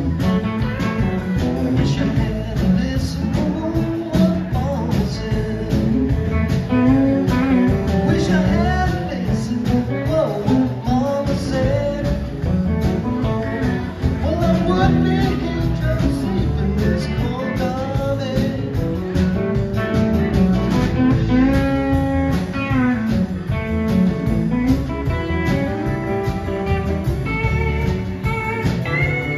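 Live band playing a blues-rock song: electric guitars, electric bass and a drum kit, with pedal steel guitar.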